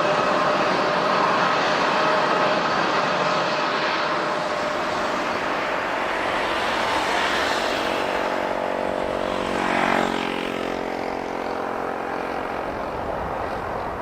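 Airliner's engines running with a steady whine, then the aircraft goes past, loudest about ten seconds in, its sound dropping in pitch and fading as it moves away.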